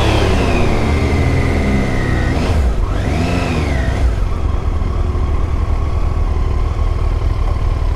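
Motorcycle engine under way. The revs fall, dip and rise again about two and a half seconds in, then settle to a steady pitch. A heavy low rumble of wind and road noise runs underneath.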